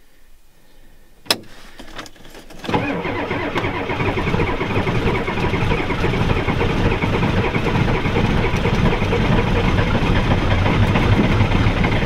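A sharp click about a second in, then from near three seconds the starter cranks the Ford 7.3 IDI V8 diesel hard for about nine seconds. It is a cold start on ether after a glow-plug cycle, and the engine does not catch.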